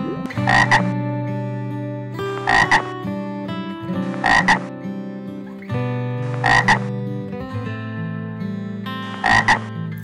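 An animal calling five times, about every two seconds, each call a quick double note, over background music.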